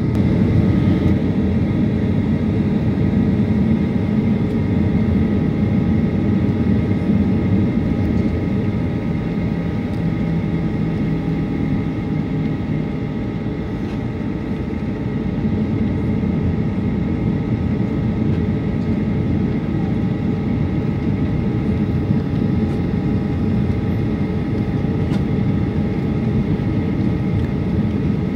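Cabin noise inside a jet airliner taxiing after landing: the steady rumble of the engines at taxi power, with a few thin, steady whining tones over it.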